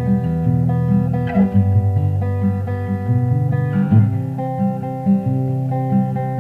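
Background music: acoustic guitar playing a melody over bass notes.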